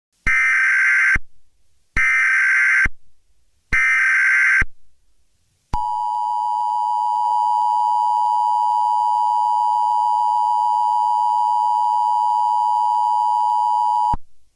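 Emergency Alert System signal: three short, harsh data bursts of the SAME message header, then the steady two-tone EAS attention signal held for about eight seconds, which cuts off abruptly.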